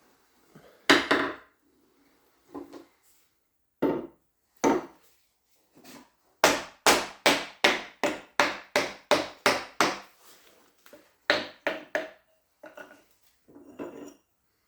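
Hammer blows: a few single knocks, then a steady run of about ten blows at roughly three a second. These are typical of driving a gudgeon pin out of a piston of a Gardner 2LW diesel engine.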